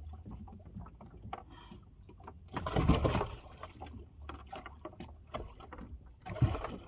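Water splashing in a bass boat's livewell as a bass is grabbed by hand, with scattered knocks and clicks against the tank. The loudest splash comes about three seconds in, and a shorter one comes near the end.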